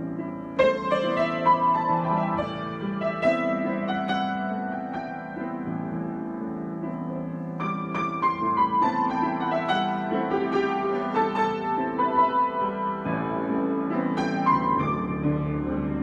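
Solo grand piano played in an improvised style: runs of higher notes over held lower chords. A loud new phrase is struck about half a second in and another about halfway through.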